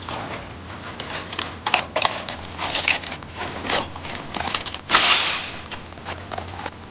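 Handling noises from unpacking a new Takitora folding fire pit: irregular rustling with short clicks and light knocks, and one louder rustle about five seconds in.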